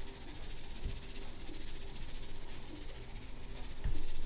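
Kosher salt being shaken on, a steady fine rattle and hiss of grains falling onto raw meat and a metal sheet pan. A short low thump comes near the end.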